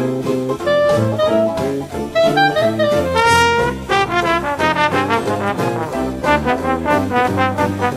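Background instrumental jazz music with brass horns, with a quick rising horn run about three seconds in.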